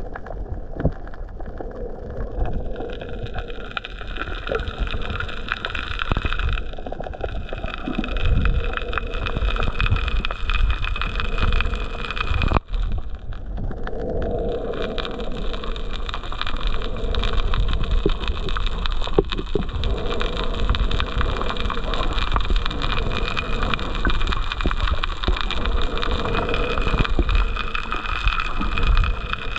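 Muffled underwater rumble and water movement picked up by a camera in a waterproof housing, with the steady whine of a distant boat motor carried through the water.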